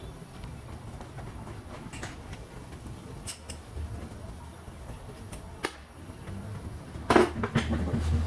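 Scattered metallic clicks and clinks of hand tools and small steel parts being handled while power steering hose fittings are undone, with a louder cluster of knocks about seven seconds in, over a low steady hum.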